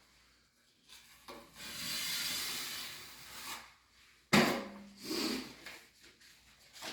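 Drywall knife scraping wet joint compound along a taped seam: one long, even stroke, then a sharp clack about four seconds in and a few shorter scrapes.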